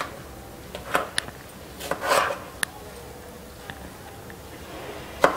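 Kitchen knife cutting tomatoes into halves on a plastic cutting board: a few separate knocks of the blade on the board, with a short slicing rustle about two seconds in.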